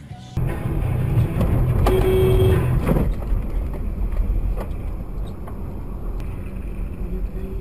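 Car driving on a highway, heard through a dashcam inside the cabin: steady engine and road rumble that starts abruptly shortly after the start, with a short steady tone about two seconds in and a few sharp knocks.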